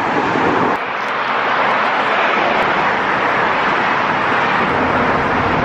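Loud, steady rushing noise of a vehicle going by close.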